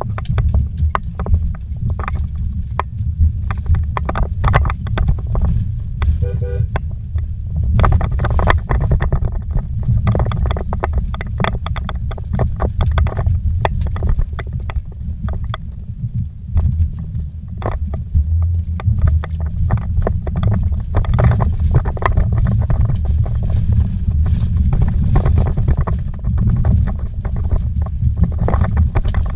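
Inside a vehicle driving fast over a rough dirt trail: a steady low rumble of engine and tyres, broken by frequent sharp knocks and rattles as it jolts over rocks and ruts.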